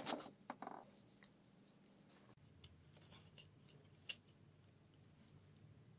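Small clicks and light scraping of plastic parts being handled and pried with a screwdriver while a digital blood pressure monitor is taken apart. A sharp clack right at the start is the loudest, followed by a few quick clicks and then sparse faint ticks.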